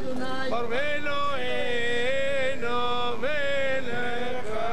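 A man chanting a Hebrew prayer in long held notes that waver and slide in pitch, in the melismatic style of a liturgical blessing.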